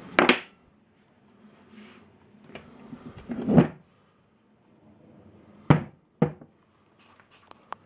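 A few separate knocks and clunks of objects being handled and set down, the loudest about three and a half and six seconds in, with a few light ticks near the end.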